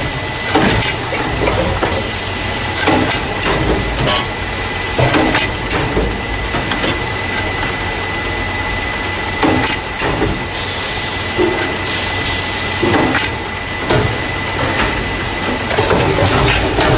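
Carton caser running as it packs paper juice and milk cartons into plastic crates. A steady high whine sits over a low machine hum, broken by irregular clanks and knocks about every second. A burst of hiss comes about ten seconds in and lasts roughly two seconds.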